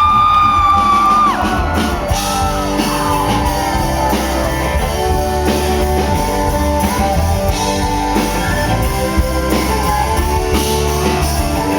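Live country-rock band playing the instrumental intro to a song: electric guitar, bass and drum kit at a steady beat. A long, high held note, a shout or a bent guitar note, rises and holds for about a second at the start.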